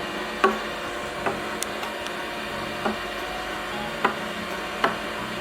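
Battery-powered toy vacuum cleaner motor running with a steady whir, with a sharp click about once a second.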